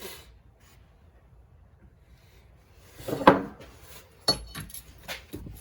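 A metallic clank about three seconds in, then a few lighter clinks and taps as metal tools and engine parts are handled.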